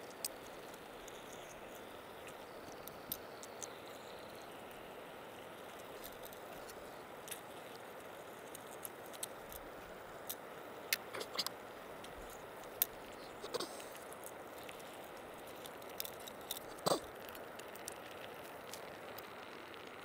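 Wet squishing and small scattered clicks as whole canned tomatoes are crushed by a gloved hand into a pot of beef chunks, with a sharper knock about 17 seconds in, over a steady faint hiss.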